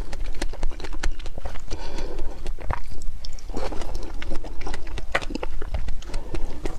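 Close-miked chewing and biting of dragon fruit, sped up: a rapid, irregular run of wet clicks and soft squelches from the mouth.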